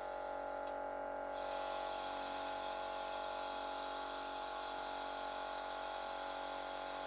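Compressed air hissing as the air cylinders of a 12-volt air-operated plow blade move it, starting about a second and a half in, over a steady electric hum.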